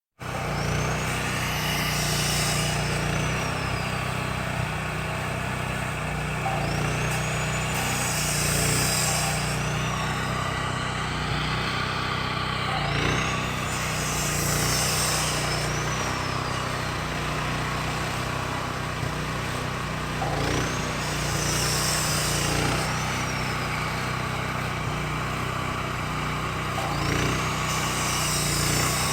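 Loud heavy machinery running steadily with a low drone. About every six to seven seconds a high whine rises and falls, together with a burst of hiss, as the machine goes through a repeating cycle.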